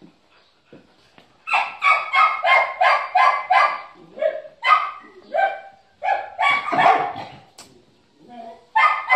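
A dog barking loudly in quick runs of about three barks a second. It starts about a second and a half in, breaks off twice and starts again near the end.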